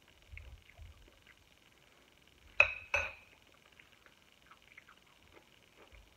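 A metal fork is set down on a ceramic plate: two sharp clinks in quick succession, a little under halfway through.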